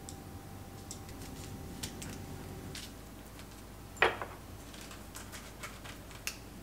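Light clicks and taps of wooden chopsticks and fish against a wire-mesh tray as small fish are laid out, with one louder, short clink of kitchenware about four seconds in.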